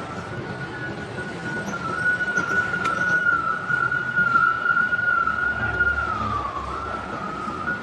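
A steady, high whistle-like tone that wavers slightly, grows louder in the middle, and dips in pitch about six and a half seconds in. A faint click comes about three seconds in.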